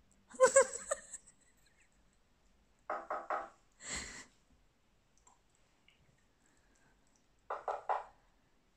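Short pitched sound effects played through a small laptop speaker: a gliding one about half a second in, then quick clusters of two or three about three seconds in and again near the end, with a short hiss just after the middle cluster.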